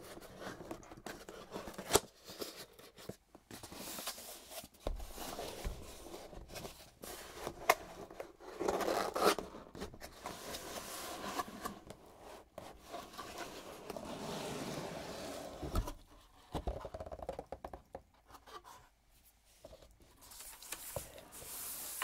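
Cardboard box being opened by hand: the cardboard tears, scrapes and slides, with scattered sharp taps and a longer sliding rush partway through.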